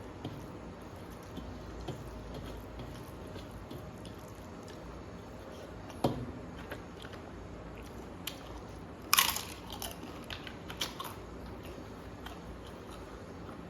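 Close-up mukbang eating sounds: chewing with small mouth clicks, a knock about six seconds in, and a loud crisp crunch about nine seconds in, followed by a few smaller crackles, as a papad is bitten.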